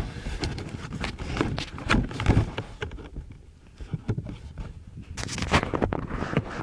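Handling noise close to the microphone: irregular rubbing, scraping and knocks as the phone is moved about in a small boat, with a denser run of knocks about five seconds in.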